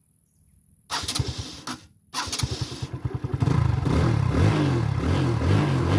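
TVS Victor motorcycle's single-cylinder four-stroke engine being started on the electric starter. About a second in, the starter cranks briefly, the engine catches at about two seconds, then runs and is revved up and down. It now starts on the self-starter, with its battery leads cleaned and retightened.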